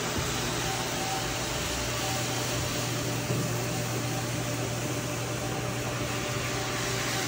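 A motor-driven machine running steadily: a constant low hum under an even rushing noise, with no change.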